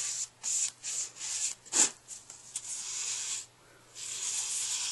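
A wide paintbrush loaded with black paint swept back and forth over a stretched canvas: a series of scratchy brushing strokes, a sharper, louder one about two seconds in, and a short pause near the end before a longer stroke.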